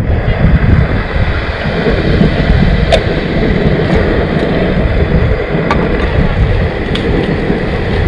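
Wind buffeting the microphone outdoors: a loud, uneven rumble, with a few faint clicks.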